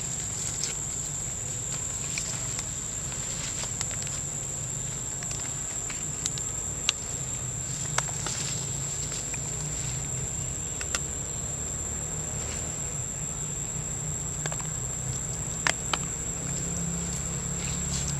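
Steady high-pitched insect drone over a low rumble, with scattered sharp clicks about nine times.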